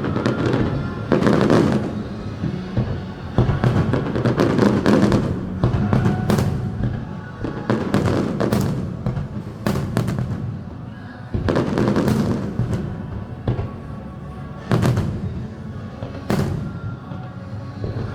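Fireworks going off in a string of bangs, roughly one every second or two, each trailing off in crackle and echo, with music playing underneath.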